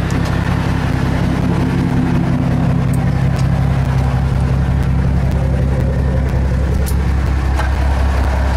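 Fishing boat's engine running steadily, a low even drone, with a few faint clicks of handling on deck.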